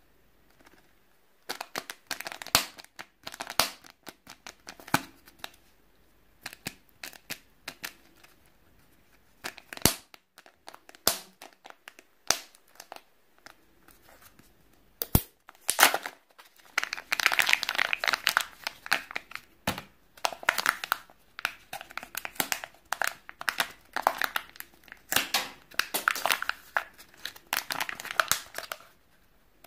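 Kinder Joy egg's plastic-film wrapper crinkling and crackling under the fingers as it is handled and picked at. It starts as scattered crackles and sharp clicks, then turns into near-continuous crinkling for roughly the last twelve seconds.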